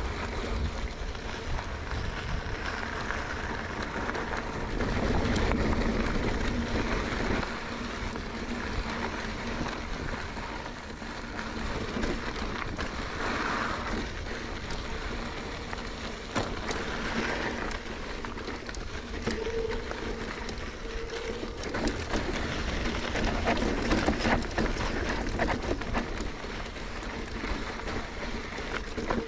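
Mountain bike riding down a rocky trail: tyres crunching over gravel and rock, with the bike rattling and knocking over bumps.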